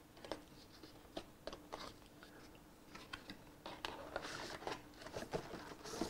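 Small cardboard box being opened by hand: scattered light rustles, scrapes and taps as the inner tray is slid out of its sleeve, busier from about four seconds in.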